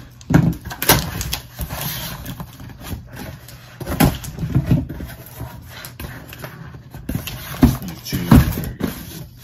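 A cardboard shipping box being opened by hand: the tape cut, the flaps pulled open and the contents lifted out of shredded-paper filler, with rustling and scraping cardboard and several sharp knocks. The loudest knocks come about half a second in and about eight seconds in.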